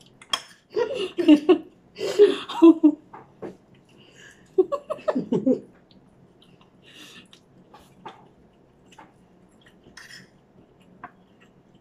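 Laughter in short choppy bursts for the first few seconds, then quieter eating sounds: scattered small clicks of a spoon and hands at plates, and chewing.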